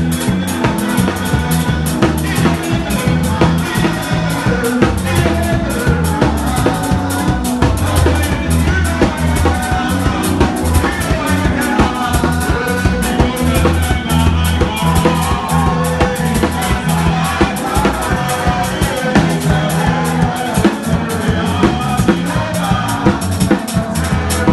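Live church band music: an electronic keyboard and a drum kit playing a steady, driving beat, with a choir singing over it.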